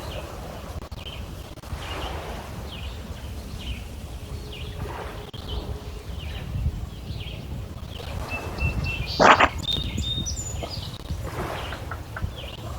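Small lake waves lapping and splashing against shoreline stones, with a louder splash about nine seconds in, over a steady low rumble. Birds chirp repeatedly in short, high notes.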